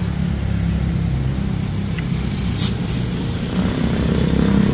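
A vehicle engine running steadily with a low rumble, and a short hiss about two and a half seconds in.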